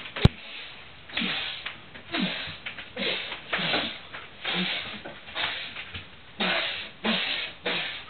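A man's loud, breathy grunts and exhalations of effort, about one a second, each dropping in pitch. A sharp click sounds just after the start.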